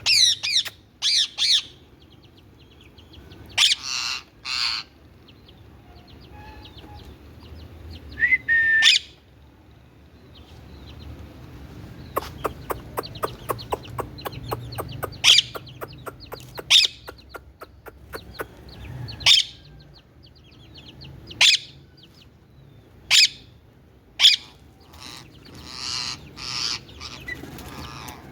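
Indian ringneck parakeet giving short, loud, high-pitched calls again and again. There is a fast run of clicks for a few seconds in the middle.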